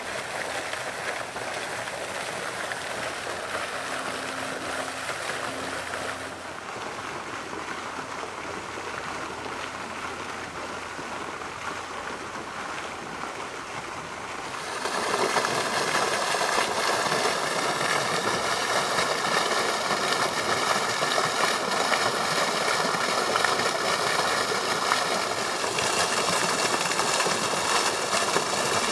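Steady rushing noise that gets clearly louder about halfway through, as the spray of a fountain jet falling back and splashing takes over.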